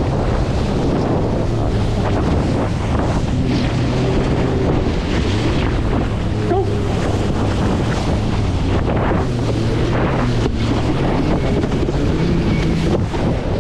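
Wind buffeting the microphone over ocean surf, with a watercraft engine running steadily underneath; its low hum wavers and rises slightly near the end.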